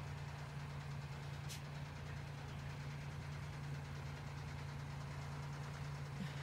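An engine running steadily with an even low hum, with a brief hiss about a second and a half in.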